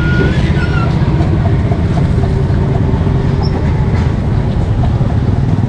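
A small engine running steadily with a low, fast, even pulse.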